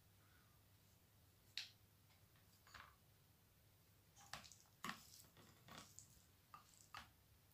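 Faint clicks and scrapes of a metal spoon and a plastic ice-cream scoop against a bowl as sticky sugared grated coconut is scooped and pressed, with soft squishes; the strokes come irregularly, more of them in the second half.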